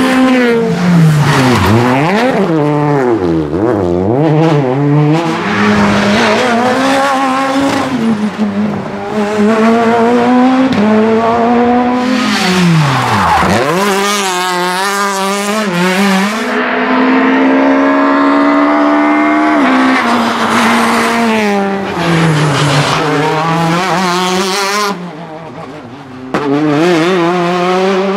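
Small naturally aspirated four-cylinder rally cars (Peugeot 208 R2, Citroën C2 R2 Max) passing one after another at full attack, engines revving hard up and down through the gears. There are sharp falls in pitch as they brake and downshift for corners, and a brief lull near the end.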